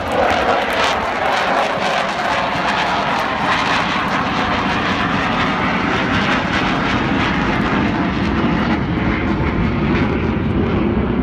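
Avro Vulcan XH558's four Bristol Olympus jet engines in a loud, steady flypast, its rushing jet noise slowly sinking in pitch and losing its hiss toward the end.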